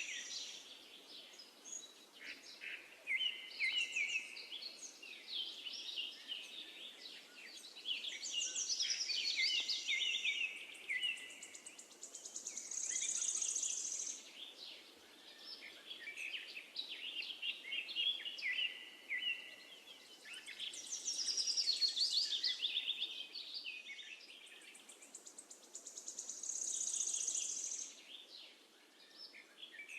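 Several songbirds singing and chirping in quick high phrases, with a high buzzing trill returning twice, over a faint steady outdoor background.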